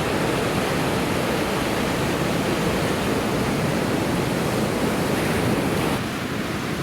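Steady rushing noise of ocean surf breaking and washing on the beach, dropping slightly in level about six seconds in.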